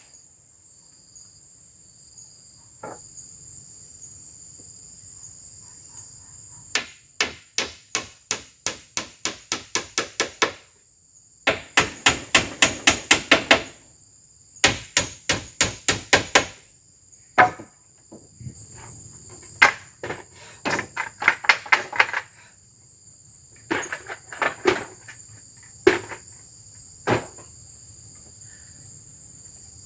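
Runs of quick blows on wood, about four a second, in bursts broken by pauses, with a few single strikes near the end. Forest insects keep up a steady high shrill underneath.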